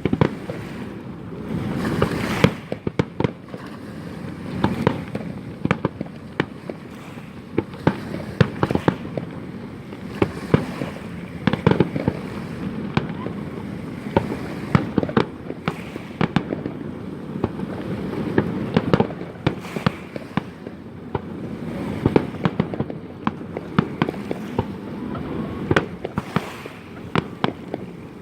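Fireworks display by Schiavone: a steady, irregular string of sharp bangs and cracks, at times several a second, over a rumble of bursts that swells and fades every few seconds.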